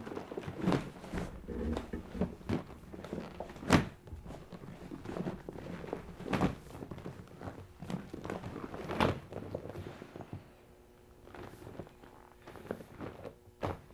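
Folding kayak hull skin being folded and pressed down: rustling and scraping of the heavy hull fabric with several dull thunks, the sharpest about four seconds in.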